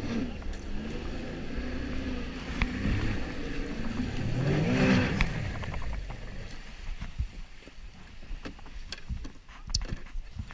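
Jet ski engine running, its pitch rising and falling and loudest about five seconds in, then dying away about six seconds in, leaving scattered light knocks.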